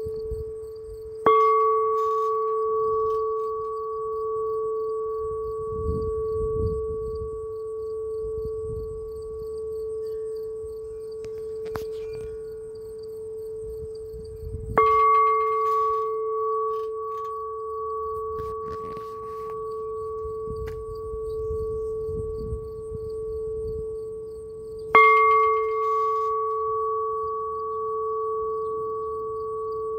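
Bell made from an old propane gas tank, struck three times: about a second in, halfway through and near the end. Each strike gives a sharp clang, then a long steady ring of a low tone with a higher one above it that carries on until the next strike.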